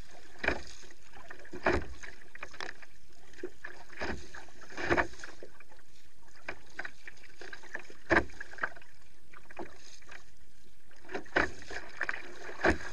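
Kayak paddled through choppy sea: irregular splashes and slaps of paddle strokes and chop against the hull, every second or few, over a steady hiss of wind and water.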